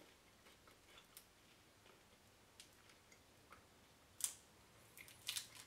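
Near silence: room tone with a few faint, scattered clicks, the clearest about four seconds in and a short cluster near the end.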